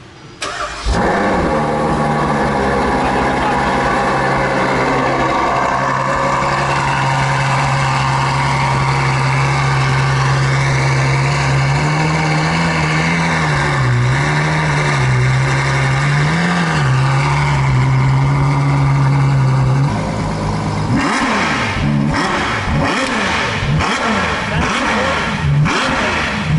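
Ferrari 812 Superfast's V12 starting about half a second in and settling into a steady idle, with a few small rises in revs around the middle. Near the end it gives a run of sharp throttle blips, each rising and falling quickly.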